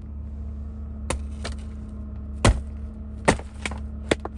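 A series of sharp, irregular knocks and cracks, about six in four seconds with the loudest near the middle, as the ice-covered minivan is worked open. A steady low hum runs underneath.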